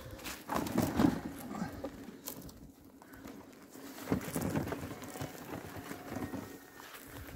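Footsteps and rustling, crunching through dry grass and brush, as a scooter with its engine off is pushed along an overgrown dirt path. The crunches come irregularly, loudest about a second in and again around four seconds.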